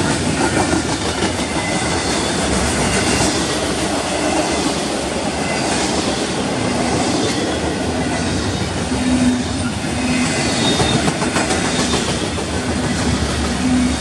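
Double-stack intermodal well cars of a freight train rolling past: a steady rumble of steel wheels on rail with repeated clicks, and a faint low tone coming and going in the second half.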